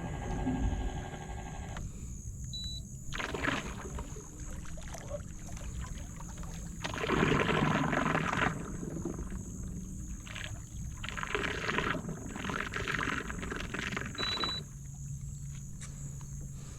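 Water swishing and sloshing in several bouts, loudest about seven to eight and a half seconds in, as the boat moves through shallow water, over a steady high drone of night insects.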